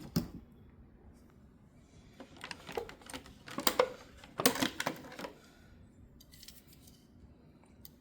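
Die-cast toy cars and their packaging being handled: one sharp click at the start, then a run of clicks and rattles from about two to five seconds in.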